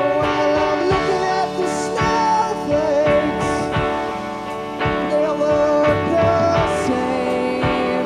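A three-piece rock band playing a slow song live on electric guitar, semi-hollow electric bass and drums. Drum hits land about once a second, with occasional cymbal crashes.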